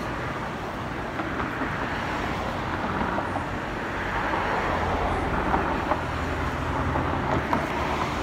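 Road traffic going by: a steady wash of car and tyre noise, with a low rumble growing stronger from about halfway through as a vehicle passes close.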